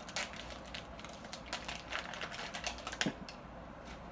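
Irregular crinkling and crackling of the plastic wrapping on an L.O.L. Surprise ball as it is peeled off by hand, busiest over the first three seconds with a sharper crack about three seconds in, then thinning out.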